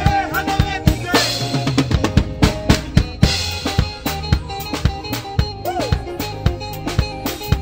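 Live band playing a drum-driven groove: a drum kit with dense kick, snare and rimshot hits over bass guitar and keyboard, with a few short vocal ad-libs.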